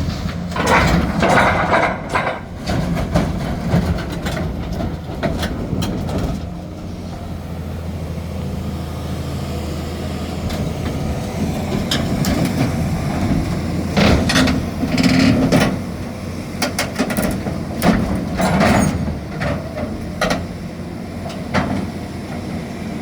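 Heavy diesel engine running steadily, with repeated sudden louder bursts of noise and knocks over it.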